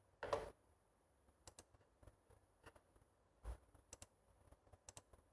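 Faint, scattered clicks from laptop controls over near silence, several coming in quick pairs like double-clicks. A brief louder noise comes about a quarter second in, and a soft low thump about halfway through.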